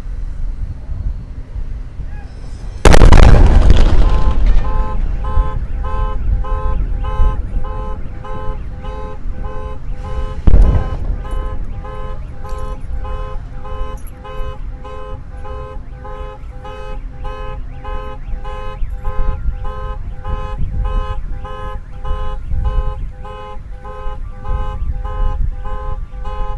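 A SpaceX Starship prototype exploding: a sudden loud boom about three seconds in that rumbles off over a second or two, then a second, shorter bang about ten seconds in. Right after the first blast a car alarm starts sounding in a fast, even on-off beeping that keeps going.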